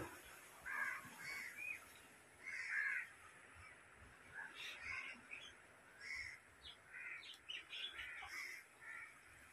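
Birds calling: many short calls scattered through, the loudest about three seconds in.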